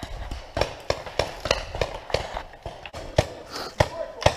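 Running footsteps crunching over dry leaf litter, about three steps a second, with the jolts of the moving camera.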